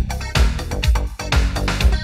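Background electronic dance music with a steady beat of about two beats a second and a heavy bass line.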